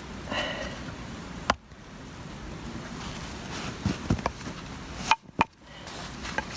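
A few sharp wooden knocks from firewood and an axe being handled, over a steady hiss.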